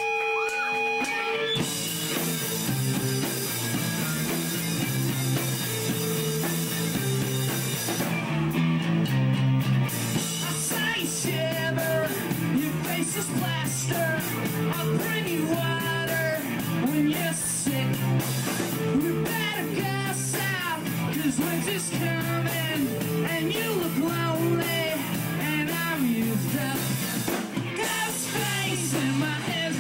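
Live rock band playing: electric guitars and drum kit. A held, ringing note gives way to the full band about a second and a half in, and a voice sings over it from about ten seconds in.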